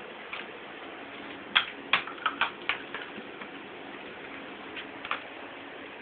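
Light taps and knocks of an empty cardboard toilet paper roll batted about by a kitten: a quick run of about six near the middle and two more near the end, over a steady hiss.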